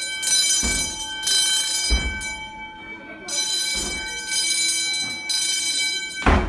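School fire alarm horn sounding in the temporal-three pattern: three blasts about a second each, a pause, then three more. Several dull thumps come between the blasts, the loudest near the end.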